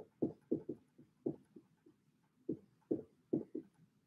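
Dry-erase marker writing on a whiteboard: a string of short, soft strokes in quick clusters, with a pause of about a second midway.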